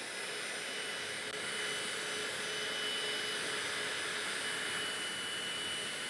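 Hoover Powerdash Pet+ hard floor cleaner running steadily as it scrubs the floor: an even whirring hiss from its suction motor and spinning brushes, with a thin high whine held over it.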